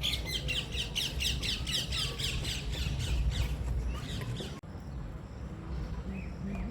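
A bird calling in a rapid series of short falling notes, about five a second, for about four seconds, then breaking off abruptly. A steady low rumble runs underneath.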